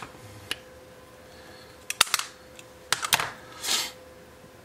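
3D-printed PLA test pieces being handled on a workbench: a few sharp plastic clicks and clacks, the loudest about two seconds in and a quick cluster around three seconds, then a short rustling scrape.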